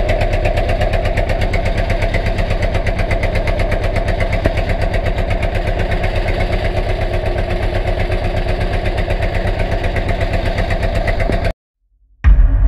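Fishing boat's engine running steadily under way, with a fast, even beat. It cuts off near the end, and music starts.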